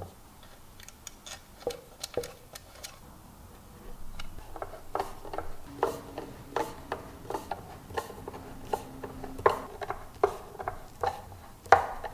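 Hand screwdriver driving screws into a wooden panel: a run of irregular sharp clicks with short creaks as the screws turn into the wood. The clicks are sparse at first and come thicker and louder from about four seconds in.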